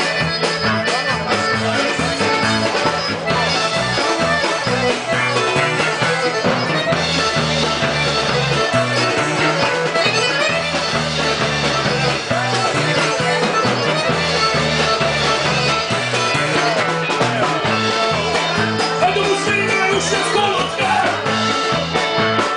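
Live band playing Serbian folk dance music for a hand-held circle dance (kolo) through PA speakers, with a steady repeating bass line and guitar under the melody.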